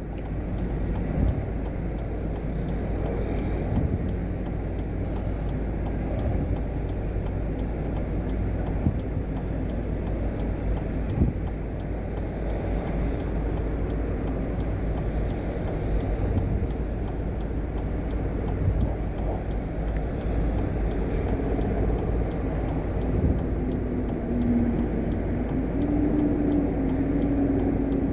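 A car running or driving: a steady low rumble of engine and road noise. A faint humming tone comes in over it near the end.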